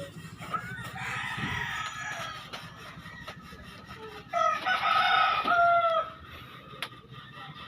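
A rooster crowing: a fainter call about a second in, then a louder crow from about the middle that drops in pitch at its end.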